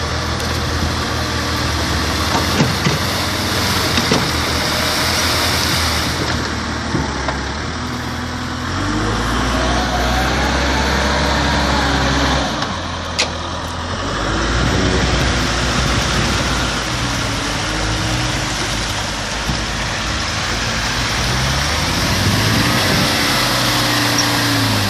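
Tractor engine labouring to pull out of a muddy bog, its pitch rising and falling as it is revved up and eased off again and again.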